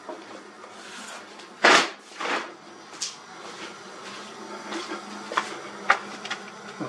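Knocks and clicks of objects being handled, with a heavy knock about two seconds in followed by a lighter one, and a few sharp clicks later on.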